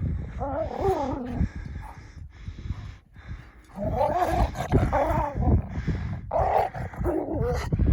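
Dogs making drawn-out, wavering calls, whining and grumbling in three bouts, over a low rumble.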